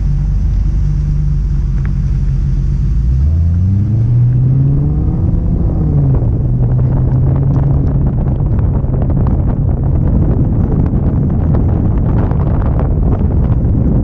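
Car engine idling, then pulling away about three seconds in, its revs rising and dropping at a gear change around six seconds, then running steadily under a growing hiss of tyre and wind noise. Heard from a camera mounted on the car itself.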